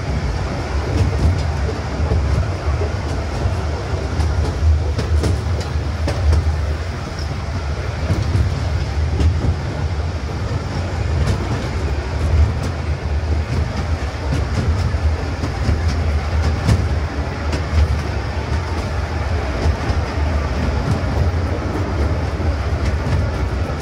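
Charity ride train running steadily along its track: a continuous low rumble with scattered sharp clicks of the wheels over the rails, coming more often near the end.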